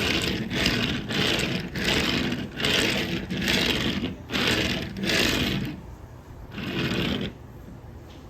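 Plastic wheels of a Transformers Studio Series 96 Ratchet toy in vehicle mode rolling back and forth on a surface, a rolling rattle in about eight strokes that stops about seven seconds in.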